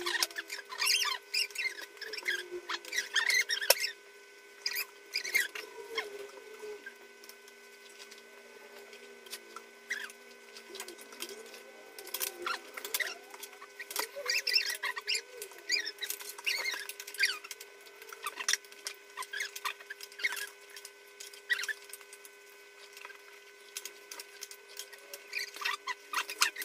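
Children eating cup ramen at a table: spoons and chopsticks clicking and scraping on bowls, with squeaky noodle slurps. These come as short, irregular clicks and squeaks over a faint steady hum.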